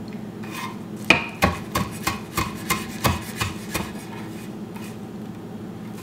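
Chef's knife rough-chopping parsley on a wooden cutting board: a run of about nine quick knocks, roughly three a second, starting about a second in and stopping near four seconds.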